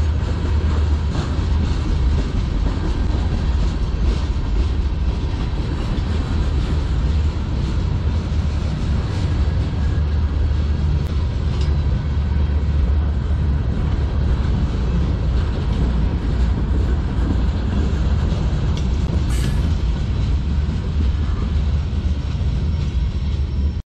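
Freight cars of a CN manifest train rolling past, tank cars then a flatcar and covered hoppers: a steady low rumble of steel wheels on rail with occasional faint clicks.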